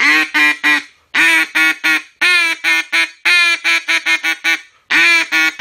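Duck Commander Inferno double-reed duck call blown in loud strings of raspy, higher-pitched quacks that ring just a little. There are five strings of three or four quacks, each opening on a longer note.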